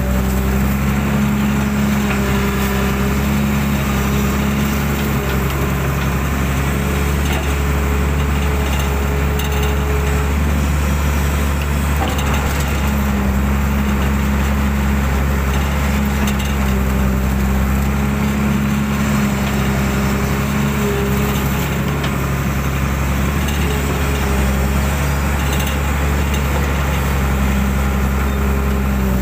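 Hydraulic excavator's diesel engine running steadily under load while the arm digs mud from a ditch. A pitched whine from the hydraulics rises over it as the arm moves, dropping away for several seconds near the middle, then returning.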